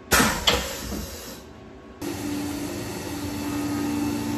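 Two metallic bangs as the enclosure door of a Tormach 1100MX CNC mill is shut. About two seconds in, the mill is running: a steady spindle tone under the hiss of flood coolant spraying while a 1/16-inch end mill takes light passes.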